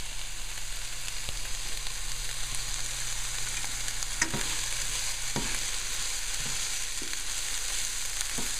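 Finely chopped onions sizzling in a frying pan, a steady high hiss, with a few faint knocks in the middle as they are stirred.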